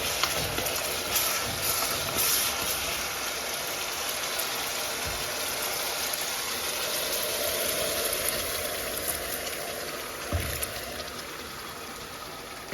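Tap water running steadily, with a few light knocks.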